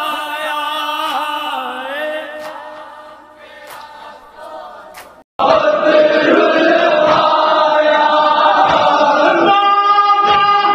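Men's voices singing a nauha, an Urdu lament, unaccompanied: a group chants with a lead reciter and fades out over about five seconds. After a brief silence, another nauha recording starts abruptly at full level, with a male reciter singing into a microphone and other men's voices joining him.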